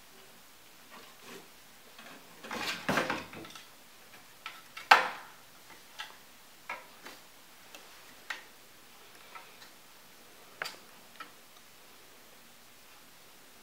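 A cat moving about inside a wooden cat house. A cluster of scuffing knocks comes about three seconds in, then one sharp knock about five seconds in, then scattered light ticks and taps of paws on the wooden floor.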